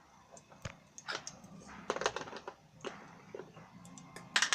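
Mustard seeds popping and crackling in hot oil: irregular sharp pops, busiest in the middle, with a louder pop or knock near the end.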